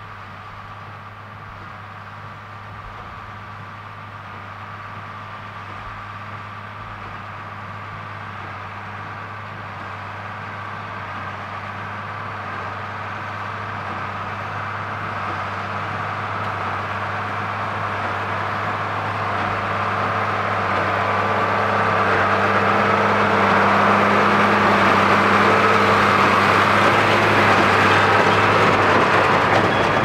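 Ford 8830 tractor's six-cylinder diesel engine working under load, pulling a New Holland BB940 big square baler as it bales hay. The steady engine hum and machinery noise grow steadily louder as the rig approaches and passes close by.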